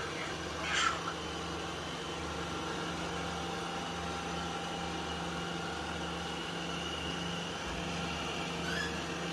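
Robot vacuum cleaner running: a steady motor whir over a low hum.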